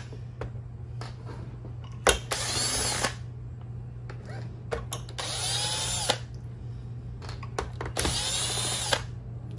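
Cordless drill/driver backing out the screws that hold a robot vacuum's drive-wheel modules, running in three short bursts of about a second each, the motor's pitch rising and falling with each run, with small clicks of handling between.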